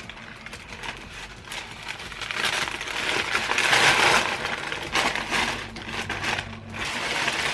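Tissue paper crinkling and rustling as it is handled and pulled out of a shoe box, an irregular crackle that grows louder in the middle and eases near the end.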